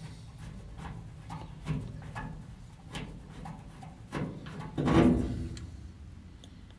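Hand tools and metal parts being handled at a workbench: a series of light clicks and knocks, with a louder clatter about five seconds in.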